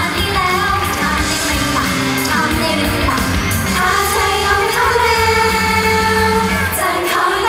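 Upbeat idol-pop song played loud through a stage PA, with young women singing into handheld microphones and a long held sung note in the second half.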